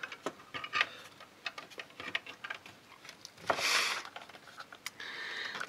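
Small scattered clicks and taps of a plastic lamp housing, circuit board and wires being handled and worked loose, with a brief rush of scraping noise about three and a half seconds in.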